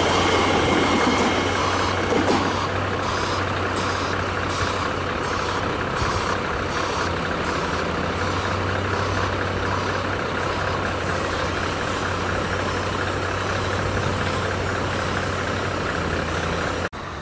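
Melbourne suburban electric trains: a Comeng train pulling out, its motor whine stopping about two seconds in and its wheels ticking over rail joints about twice a second for a few seconds. A steady low hum runs underneath while a Siemens train approaches.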